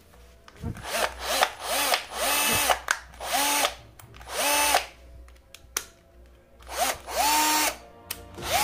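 Bosch GSR 120-LI 12 V cordless drill/driver run in a string of short trigger pulls, about one a second, its motor whine rising, holding and dropping off each time. It is freshly reassembled after a gearbox repair and runs smoothly.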